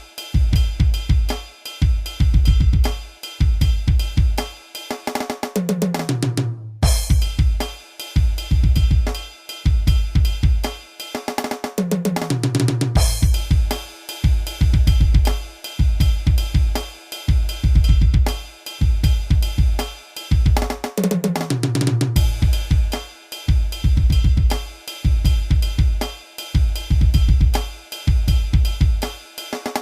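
Octapad electronic percussion pad playing a Nagpuri-style drum patch: a steady, loud rhythm of deep bass-drum hits with snare and hi-hat. About every eight seconds a fill brings in a drum sound that slides down in pitch, and near the seventh second the beat stops for a moment before it starts again.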